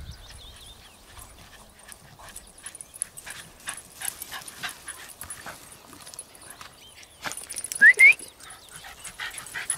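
Cairn terriers playing in long grass: scattered rustling and scuffling with short snuffles and pants. About eight seconds in comes a loud, short rising squeal in two quick parts.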